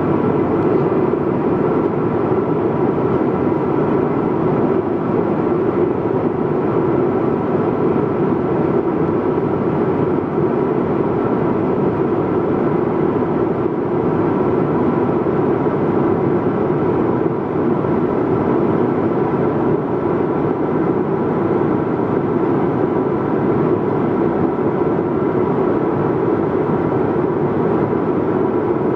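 Airliner cabin noise in cruise flight: a steady deep rush of airflow and engine sound, with a faint steady hum above it, unchanging throughout.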